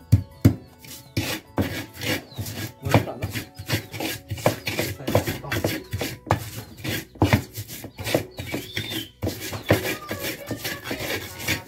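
Ulekan pestle grinding and crushing garlic cloves in a cobek mortar: repeated scraping and knocking strokes, about two to three a second.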